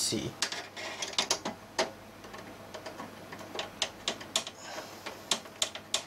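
Small, irregular metallic clicks and ticks from fitting a graphics card's mounting bracket to a steel PC case, with a screwdriver working at the bracket screws.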